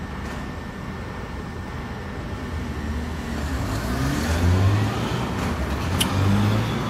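A road vehicle's engine over a steady low rumble, growing louder past the middle. One sharp click about six seconds in.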